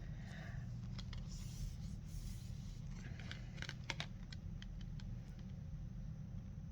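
Soft rustling and scattered small clicks from handling enamel bookmarks in their plastic packaging, most of the clicks about three and a half to four and a half seconds in, over a steady low hum.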